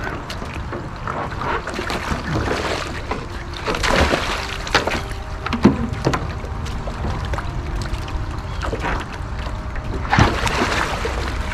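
Pool water sloshing and splashing around a capsized wave ski with its paddler strapped in underneath, over a steady low rumble. Sharper splashes come at about four seconds and about five and a half seconds in, and a longer rush of water comes about ten seconds in.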